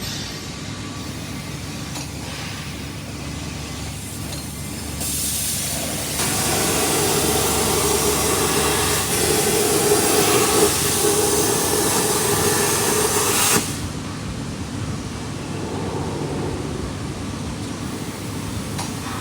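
CNC cutting machine at work: a steady hiss over a low machine noise. The hiss grows louder about five seconds in and cuts off suddenly partway through, then the low running noise carries on.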